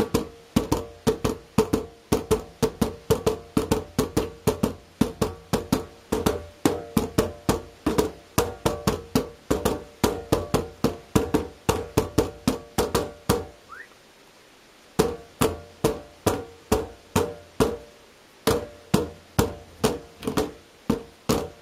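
Nunchaku drumming on the lids of two plastic bins: quick, even knocks several times a second, each with a short ringing tone. The drumming pauses for about a second and a half just after the middle, then starts again.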